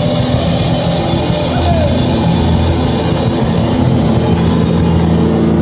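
A street busker's amplified rock music, loud and continuous, with sustained notes over a steady band sound.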